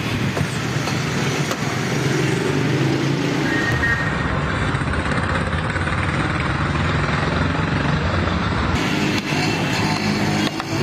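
Roadside traffic noise with a motor vehicle's engine running close by through the middle, dropping away about nine seconds in.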